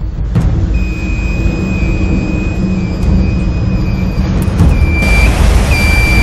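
Storm seas breaking against a ship's hull, with heavy wind: a dense rushing noise over a strong low rumble. A steady high whistle runs through the first part. From about four and a half seconds a high beep repeats about once a second.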